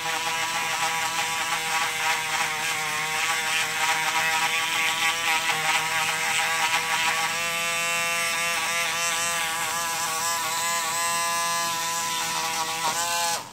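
Small corded rotary handpiece with a sanding drum, grinding a 3D-printed FDM plastic part: a steady high motor whine whose pitch wavers as it works. The pitch drops sharply just before the sound stops near the end.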